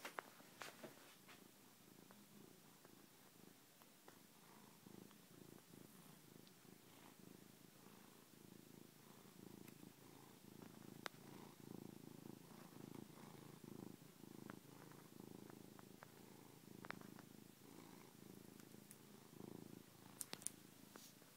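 Domestic cat purring right against the microphone: a faint, rapidly pulsing low rumble that grows a little stronger partway through, with a few light clicks.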